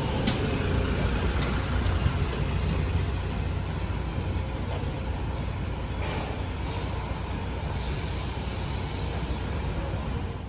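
Non-step city bus pulling in and stopping, its engine running with a steady low drone, and hisses of compressed air from its air brakes from about six seconds in.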